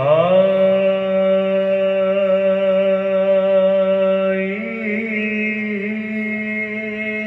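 A man's voice chanting long held notes: it glides up into the first note, holds it for several seconds, then steps up to a second held note about halfway through.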